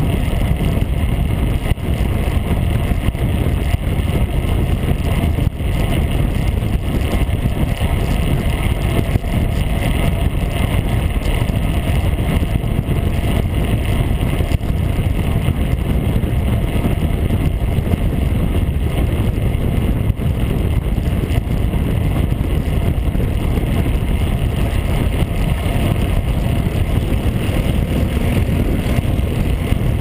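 Steady rush of wind and road rumble on a bicycle-mounted action camera's microphone during a fast road-bike descent, with no breaks or changes.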